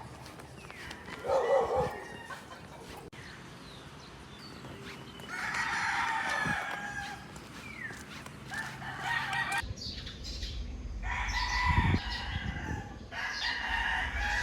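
Roosters crowing repeatedly, long drawn-out calls one after another. A low rumble joins in for the last third.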